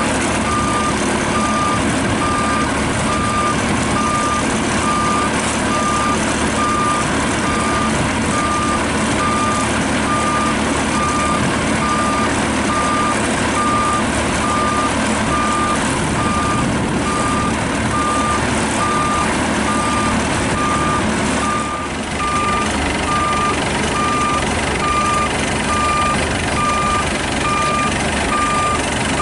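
Maxxi Bimo 102L combine harvester's engine running steadily, with its electronic warning beeper sounding about twice a second.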